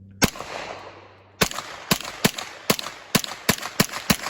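Gunfire at a shooting range: a single shot followed by an echo, then about a second later a rapid string of shots, about three a second.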